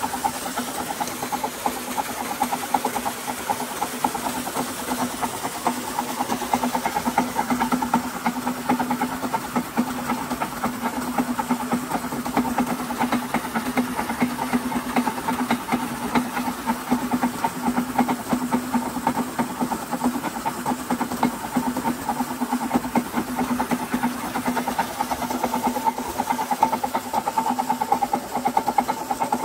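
Belt-driven flywheel-and-alternator rig and the electric water pump it powers, running steadily: a continuous hum with a fast, even rattle, over the hiss of water gushing from the pump's outlet.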